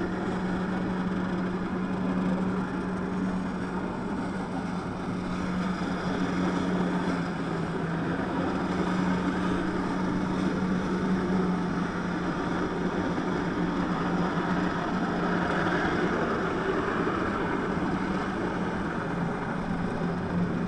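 Jet ski engine running steadily under throttle, driving the water jet that feeds the flyboard, its tone held at one even pitch throughout.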